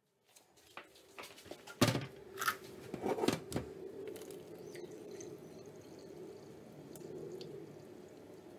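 Hot water from boiled rice poured out of an aluminium saucepan through a small sieve into a stainless steel sink, a steady thin stream splashing: the rice being drained. A few knocks come first.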